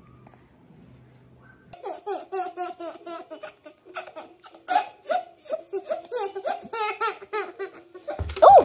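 A baby laughing in quick, repeated giggles, starting about two seconds in, with one louder squeal near the end.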